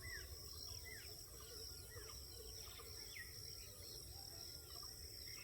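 Faint natural ambience: a steady high-pitched insect drone, with many short chirping calls that mostly fall in pitch, scattered throughout, over a low rumble.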